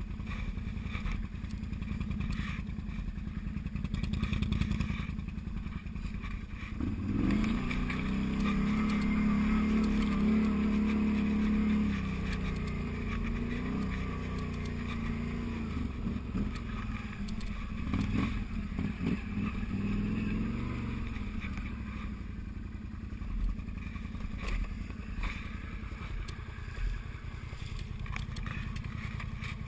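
Can-Am Outlander 1000's V-twin engine running. It picks up to a louder, higher, wavering run from about seven seconds in, then settles back to a lower rumble after about twenty seconds.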